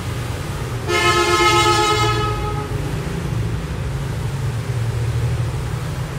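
A vehicle horn gives one long honk of about a second and a half, starting about a second in, over the steady low rumble of street traffic.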